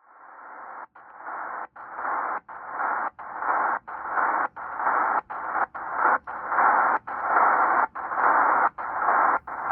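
Tecsun PL-330 shortwave receiver being tuned in sideband mode: a dull, narrow hiss of band static that mutes for an instant at each tuning step, roughly every three-quarters of a second, which is the radio's muting chuff. The hiss swells over the first few seconds.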